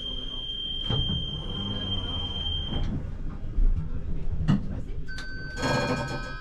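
ČKD Tatra T6A5 tram's door warning buzzer giving a steady high beep that stops about three seconds in, over the low rumble of the tram. A couple of knocks follow, and near the end there is a short ringing chime.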